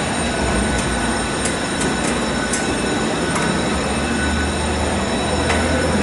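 A steady loud rushing noise with a low hum, over which a few faint, sharp metal clicks come from a screwdriver turning a screw in a steel equipment rack, mostly in the first half and once more near the end.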